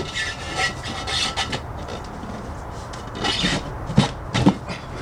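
Lubed motorcycle tire being forced onto its rim by hand, the rubber bead rubbing and scraping over the rim edge in a few strokes, with two sharp knocks near the end.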